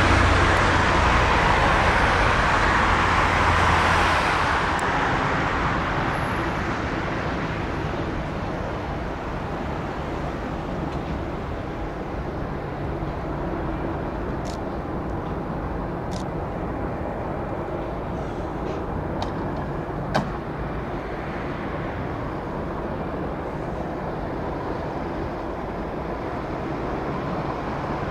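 Airbus A320 jet engines running at taxi power as the airliner rolls past: a steady rushing whine, loudest at first, that fades over the first several seconds to a steady lower level. A single sharp click about twenty seconds in.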